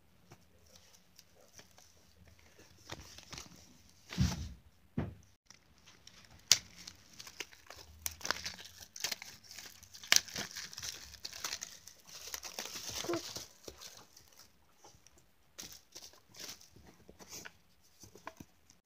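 Clear plastic packaging crinkling and rustling while a small picture frame is unwrapped and handled, with scattered sharp clicks and knocks from the frame. Two low thumps come about four to five seconds in.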